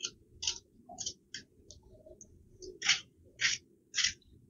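Paring knife slicing through a tomato held in the hand: a series of short slicing sounds, eight or so, unevenly spaced.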